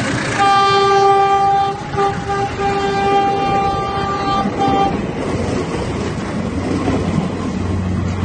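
Train horn sounding a chord: one long blast, then several shorter blasts over about four seconds. Under and after it comes the steady rumble and clatter of the passenger cars' wheels rolling past on the rails.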